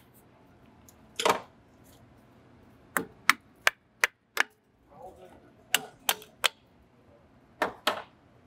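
Sharp metallic clicks and knocks, about a dozen in irregular groups, as a brake caliper, its crusty worn pad and a steel tool are handled and knocked together.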